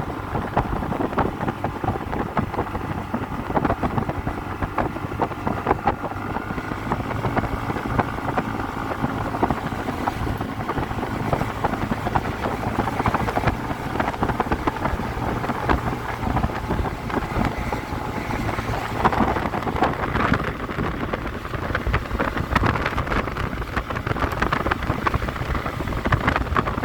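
Motor scooter running at riding speed, with wind buffeting the microphone throughout.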